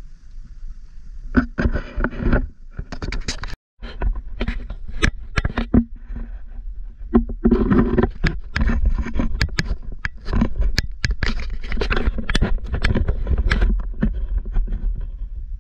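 Wind buffeting the camera microphone, with a heavy rumble and irregular crackling and scraping bursts from handling the camera. The sound cuts out briefly about four seconds in.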